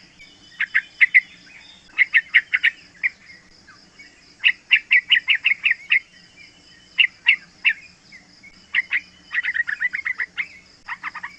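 Young yellow-vented bulbul (trucukan) calling in repeated quick runs of short chattering notes, about four to eight notes per run, with short pauses between runs. A steady pulsing insect trill runs behind it.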